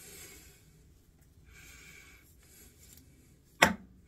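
Faint scratchy rustling of a long wig's hair being fluffed and pushed about by hand, in two short spells, then one brief voiced grunt about three and a half seconds in, the loudest sound.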